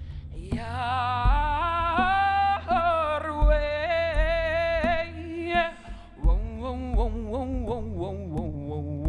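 A solo voice singing long wordless vowel notes with a wavering vibrato, a held phrase and then, after a short breath near the middle, a second phrase with quick turns in pitch, part of an icaro, a sacred healing song. Low thumps sound under it every second or two.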